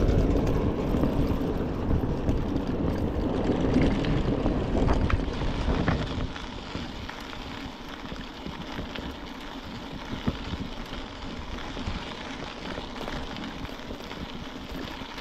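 Wind rushing over the microphone of a moving mountain bike. It is loud for about the first six seconds, then drops to a lower, steady rush with faint scattered crackling.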